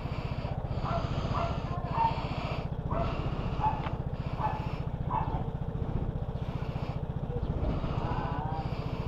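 Single-cylinder four-stroke engine of a Vespa Primavera S 150 scooter idling steadily, with an even low pulse. Faint short calls sound now and then in the background.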